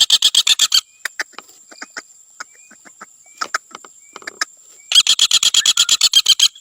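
Common flameback woodpecker giving its rapid rattling trill, a fast run of sharp notes about ten a second. It calls once at the start and again about five seconds in, with scattered single notes between.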